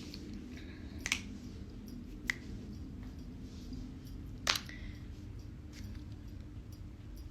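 Three sharp clicks, about a second in, just over two seconds in and the loudest around four and a half seconds in, over a low steady background hum.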